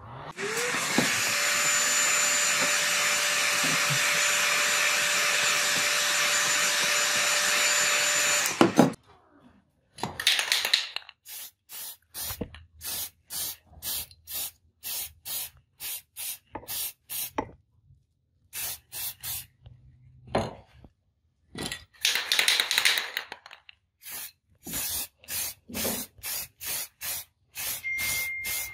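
Spray coating a knife handle: a long, steady spray hiss for about eight seconds, then a run of short spray bursts, about one or two a second.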